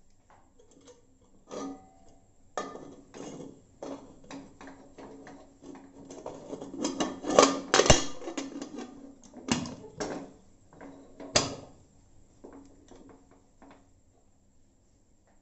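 Metal clattering and clicking as a pressure cooker's lid is fitted and locked shut, a run of knocks and scrapes with the loudest clanks about halfway through and one sharp clack a few seconds later.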